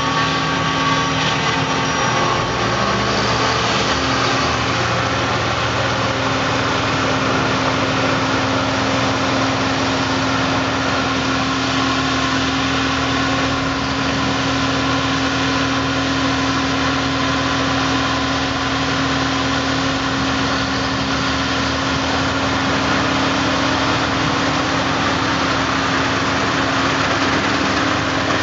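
John Deere 5830 self-propelled forage harvester chopping maize, with the tractors hauling its silage trailers alongside; the engines and machinery run steadily, giving a continuous drone with a held hum.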